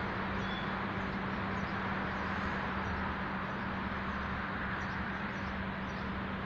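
Steady outdoor background noise with a constant low hum, unchanging in level.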